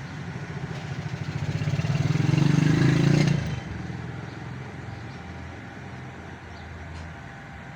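A motor vehicle engine passing by, swelling to its loudest about three seconds in and then falling away to a low rumble.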